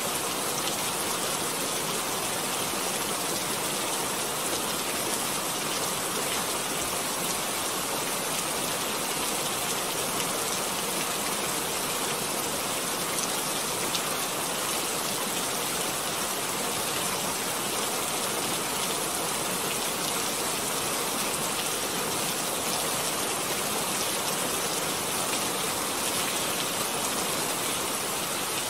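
A steady, even hiss like rain, with no breaks or changes.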